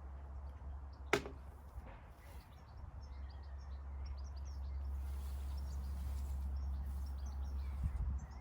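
Birds chirping in short scattered calls over a steady low rumble of wind on the microphone, with one sharp click about a second in.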